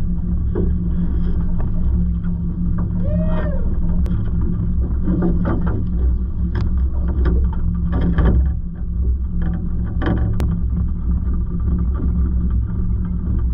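Outboard motor of a small aluminium fishing boat running steadily at low speed. A short gliding squeal comes about three seconds in, and several short knocks come in the middle as a fish is netted and brought aboard.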